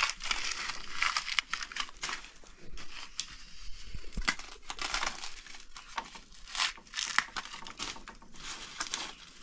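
Dry corn husks crinkling and tearing as ears of corn are husked by hand, in irregular crackling rustles.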